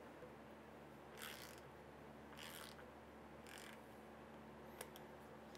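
A hand-turned MPT pipe tap cutting threads into a shock reservoir cap: faint metal scraping strokes roughly once a second, with a single sharp click near the end.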